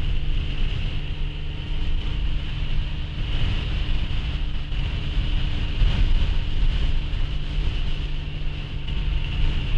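Steady vehicle drone heard from inside a car, engine and road noise with a constant hum, and strong wind noise over it throughout.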